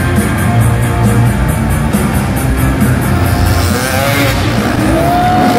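Loud rock music over the arena sound system with a steady beat. From about three and a half seconds in, a dirt bike's engine revs up in a rising whine.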